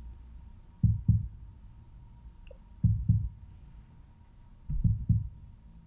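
A slow heartbeat: a low double thump, lub-dub, about every two seconds, three beats in all.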